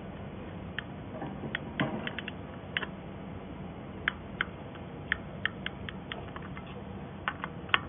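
Spoke wrench and bicycle spokes clicking as a replacement spoke's nipple is tightened by hand: a string of sharp, irregular metallic ticks.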